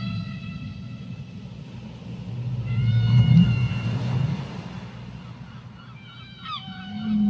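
Whale calls in deep water: long, drawn-out pitched moans, the loudest swelling about three seconds in, and short calls gliding up and down near the end, over a steady low underwater rumble.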